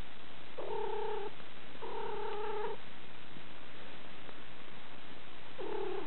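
Domestic cat giving three short, level-pitched calls: one about half a second in, a longer one at about two seconds, and a brief one near the end.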